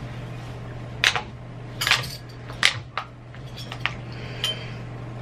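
Metal spoons clinking and scraping against dishes and ice cream tubs as ice cream is scooped, several sharp clinks about a second apart, over a steady low hum.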